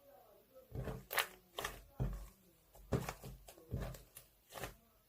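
Sticky, gooey slime being pressed and stretched by hand, giving a run of sharp wet pops and clicks, about two a second.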